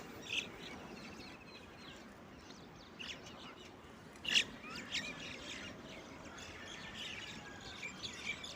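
Small birds chirping, with short scattered calls and a louder chirp about halfway through, over a faint outdoor background hiss.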